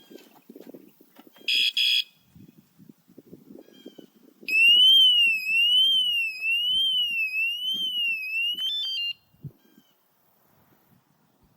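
BANGTING electronic bike alarm sounding: two short high beeps, then a loud warbling siren rising and falling about once a second for roughly four and a half seconds, ending in a few quick stepped tones.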